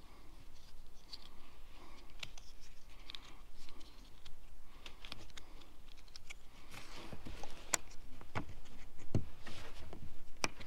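Small hard-plastic parts of a retractable rod strap being handled and fitted together by hand: scattered light clicks and short scrapes, coming more often and a little louder in the second half.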